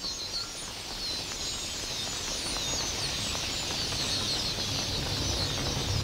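A huge flock of red-billed queleas, a dense mass of thin high chirps from countless birds at once, over a steady rush of many fluttering wings.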